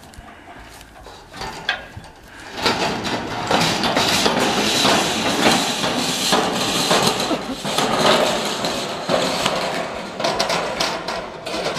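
Clattering and knocking of galvanized steel roofing sheets being worked on: a quiet start, then from about two and a half seconds in, a dense run of loud, sharp metallic knocks and rattles.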